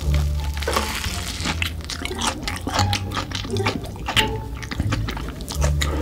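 Close-miked eating: biting and chewing a crunchy Hot Cheetos-coated fried snack dipped in cheese sauce. Dense crunching crackles mix with wet, sticky mouth sounds.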